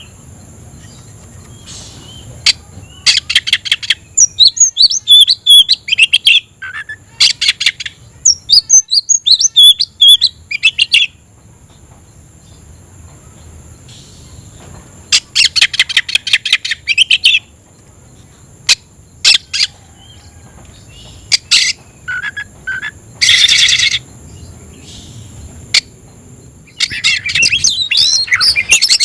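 Oriental magpie-robin (kacer) singing its challenging song, as a bird does when seeking a rival: loud bursts of rapid, varied whistles and chatter broken by pauses and single sharp notes. There is one harsh rasping burst about two-thirds through, and a long unbroken run of song near the end.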